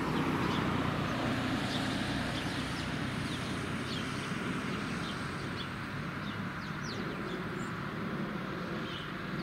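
Street ambience: a low traffic rumble that eases slightly, with small birds chirping repeatedly in short, quick chirps.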